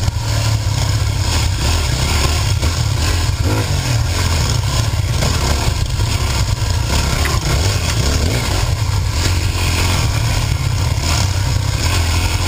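Yamaha dirt bike engine running steadily while riding a muddy trail, heard close up. An even hiss sits over the engine throughout.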